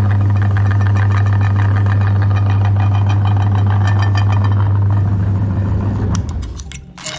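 Electric meat grinder running steadily with a strong motor hum and a crackling grind from the chocolate being forced through it, then switched off and winding down about six seconds in, with a few sharp clicks at the end.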